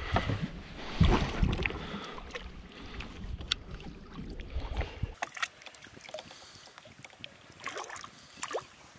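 Lake water sloshing and splashing against the boat's side as a muskie is held in the water and released, with wind rumbling on the microphone for the first five seconds; after that, quieter small splashes and clicks.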